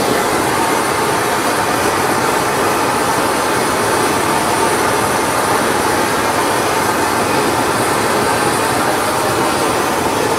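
BRS-7 pressurized gasoline camp stove burning at full flame with its fuel valve turned up: a loud, steady roar from the burner.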